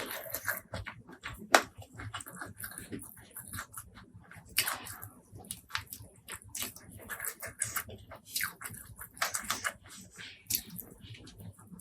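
Close-miked eating: wet chewing and lip-smacking with irregular crisp crunches.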